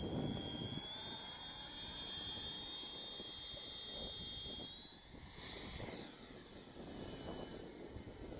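High whistling whine of a 70 mm electric ducted fan fitted with a whistle modification, powering an RC Eurofighter park jet in flight. The whine holds steady, then climbs sharply in pitch about five seconds in as the jet passes.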